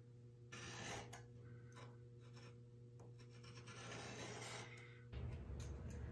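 Marking knife drawn across a pine board along a square, scoring a knife line: several faint scratching strokes, one longer than the rest.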